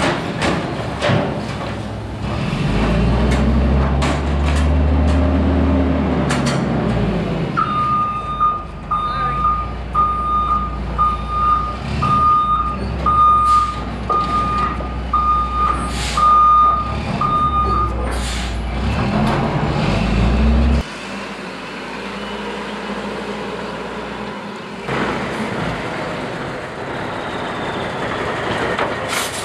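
Front-loading garbage truck's diesel engine revving up and down to drive the hydraulic arms as a container is tipped over the cab, with metal clanks. Then the truck's reverse alarm beeps about once a second for roughly ten seconds. About three-quarters of the way through, the heavy engine sound cuts off to a quieter, steadier truck engine.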